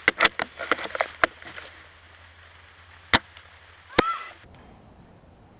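Silverback SRS A1 airsoft sniper rifle clicking and snapping as it is handled and fired: a quick run of sharp clicks in the first second and a half, then two single cracks, the second followed by a short metallic ring.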